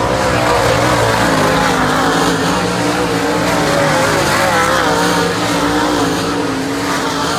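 Several dirt-track race car engines running at speed together, their pitches rising and falling unevenly as the cars race.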